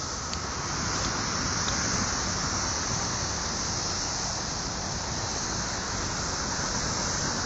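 Dense, steady chorus of periodical 17-year cicadas (Magicicada, Brood XIII) singing: a continuous high, shrill hiss with a low rumble underneath.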